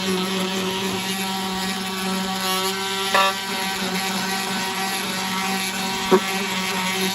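Ryobi detail sander running with a steady buzz, its 40-grit pad vibrating at about 13,000 strokes a minute as it sands inside a small wooden box. Two short knocks, about three and six seconds in.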